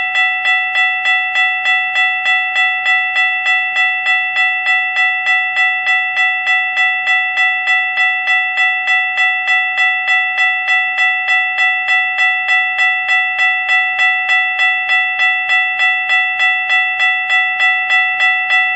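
Railroad crossing bell ringing steadily, about two and a half strikes a second, each strike ringing on at the same bright pitch: the warning while the lights flash and the gate is down.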